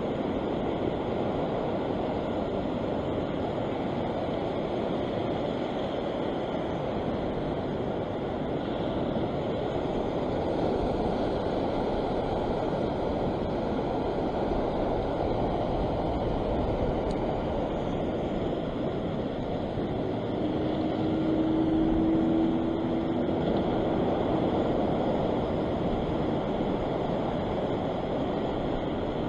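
Steady surf washing over a rock shelf, with wind rumbling on the microphone. The sea swells a little about two-thirds of the way through, and a faint steady hum sounds over it for a few seconds.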